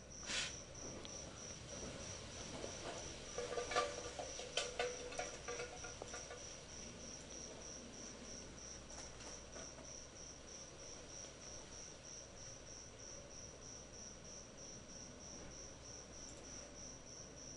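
Faint, steady chirping of a cricket: a high, even pulse repeating several times a second. A few faint clicks and knocks come in the first few seconds.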